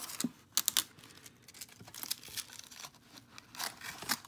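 Cardboard and paper packaging crinkling and rustling as hands pull small fabric curtains out of a toy box insert, with a cluster of loud crackles a little over half a second in.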